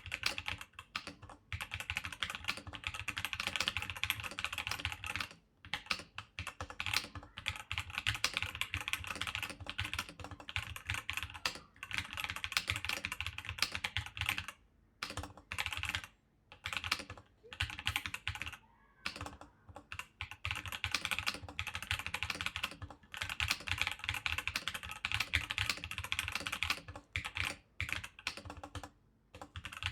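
Fast typing on an omega60 replica typewriter-style keyboard built of steel plates: dense runs of metallic key clacks, broken by a few brief pauses.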